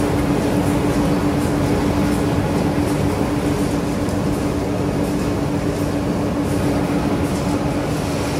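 High-speed corrugated cardboard rotary die-cutting and printing machine running steadily as it feeds board sheets. It is a constant mechanical noise with a steady hum and faint repeating ticks over it.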